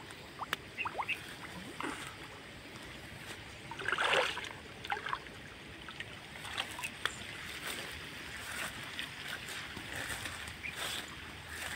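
Water splashing and sloshing on and off, with scattered small clicks and one louder splash about four seconds in.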